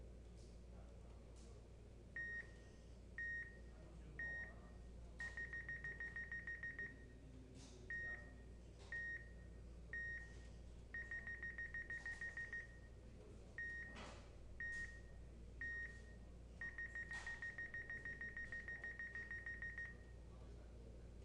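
Electronic beeps from motion-capture calibration software, marking the calibration poses. Three single beeps count down, then a run of short, fast beeps follows while the pose is held, and the whole pattern comes three times. A few faint clicks fall in between.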